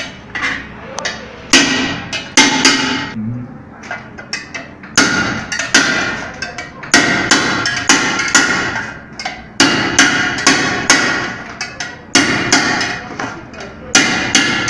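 Hammer blows on the rim of an aluminium pressure cooker body, a quick irregular series of metallic strikes, each ringing briefly, with short pauses between runs. The rim swelled out of shape from overpressure and is being beaten back down.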